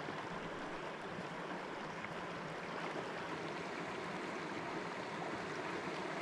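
Running water of a stream, a steady even rush.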